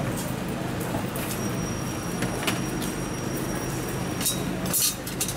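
A motor vehicle engine running steadily in the street, with a few sharp clicks and clatters near the end.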